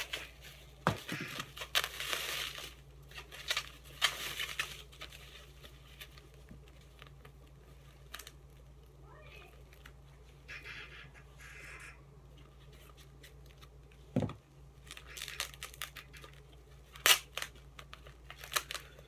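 Plastic packaging being crinkled and torn open by hand, in bursts of rustling with a quieter spell in the middle. Two low knocks, one about a second in and one about three-quarters of the way through.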